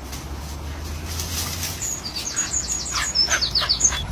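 A bird chirping a quick run of short, high notes, about five a second, several falling in pitch, starting about halfway in, over a low steady rumble.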